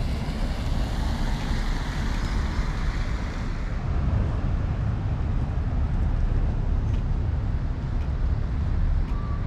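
A car's tyres hissing past on a wet road, the hiss fading after about three and a half seconds, over a steady low rumble of wind on the microphone.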